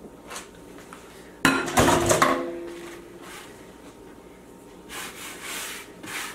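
A metal kitchen utensil knocks and clatters against the dough board with a brief ring, as if being picked up or set down for cutting the dough. Softer brushing sounds follow near the end.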